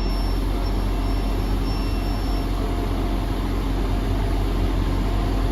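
A train standing at the platform with its engines idling: a steady low rumble that holds level throughout.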